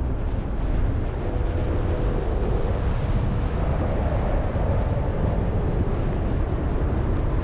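Rushing wind buffeting the action camera's microphone on a paraglider in flight: a steady low rumble of airflow.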